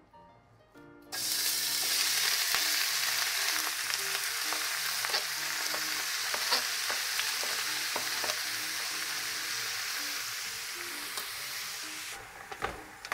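Thinly sliced raw meat hitting hot oil in a large aluminium pot: a loud frying sizzle that starts suddenly about a second in, with scattered scrapes and taps as a knife pushes the meat off a cutting board. The sizzle eases near the end.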